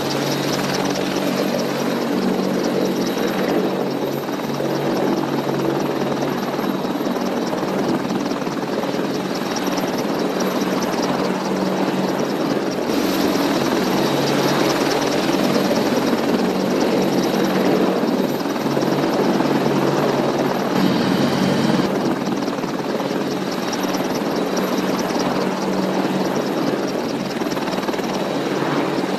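Several military attack helicopters running together as they lift off and hover low: a steady, loud rotor chop over their turbine engine noise.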